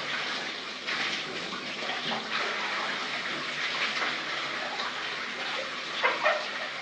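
Shower water running and splashing steadily, with a few brief louder splashes, one about six seconds in.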